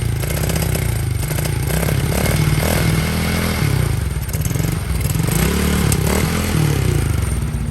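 Small 110cc dirt bike engine running, revved up and back down twice.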